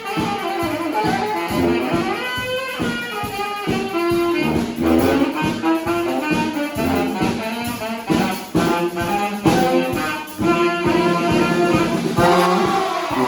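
Brass band playing live, horns sounding over a steady beat.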